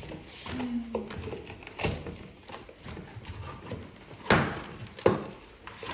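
Cardboard shipping box being opened by hand: scraping and rustling of cardboard flaps and packing tape, with two sharp knocks about a second apart near the end.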